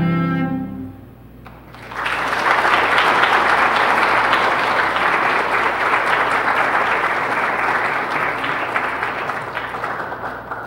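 A cello's last bowed notes fade away, then the congregation applauds steadily from about two seconds in.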